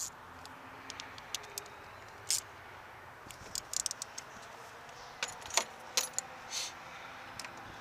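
Irregular small clicks and light metallic rattles from hands working a hose onto an oil catch can's fitting, over a steady background hiss.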